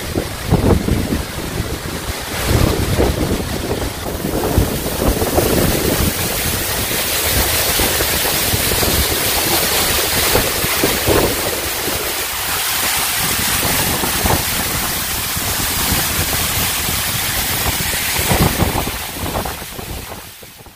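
Waterfall: a steady rush of falling water, with wind buffeting the microphone in gusts. It fades out near the end.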